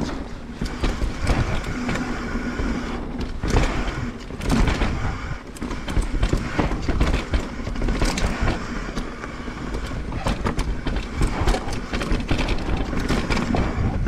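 Propain Spindrift AL 29 mountain bike descending a dirt trail at speed: tyres rolling and scrabbling on dirt and roots, with frequent rattles and knocks from the bike over the bumps, over a steady low rumble of wind on the camera.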